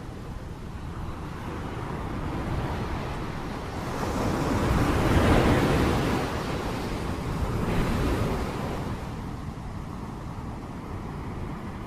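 Steady rain noise, a dense even hiss that swells louder for a couple of seconds about halfway through and briefly again a little later.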